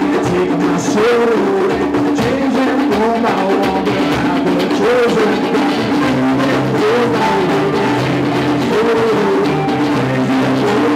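Live band playing a rock song: acoustic guitar, electric bass and drums, with a melody line that slides up and down in pitch.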